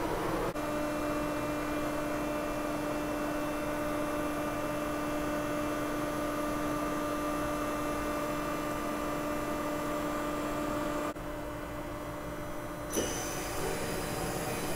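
Steady pitched hum from a powered-up Mori Seiki SV-500 CNC vertical machining center, holding a few steady tones. The sound changes abruptly about half a second in and again around 11 seconds, with a short bump near 13 seconds.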